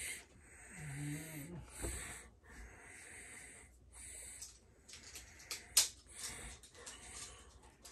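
A person's wheezy breathing close to the microphone, in repeated strokes a little under a second apart, with a short hum about a second in and a sharp click near the six-second mark.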